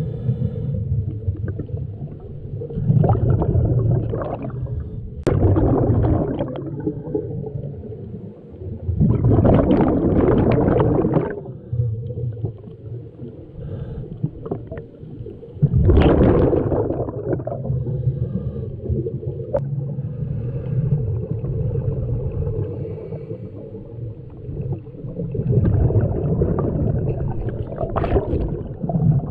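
Scuba regulator breathing heard underwater: muffled rushes of exhaled bubbles every few seconds, each lasting a second or two, over a low steady underwater rumble.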